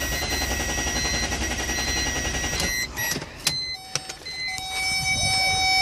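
BMW E46 engine cranking over on the starter for nearly three seconds without catching, then the cranking stops, followed by a few sharp clicks. It spins over well but will not fire because the fuel pump is bad and there is no fuel pressure.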